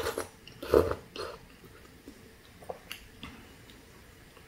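A person slurping a mouthful of pho noodles and broth off chopsticks, with one loud slurp just under a second in, then chewing with a few faint mouth clicks.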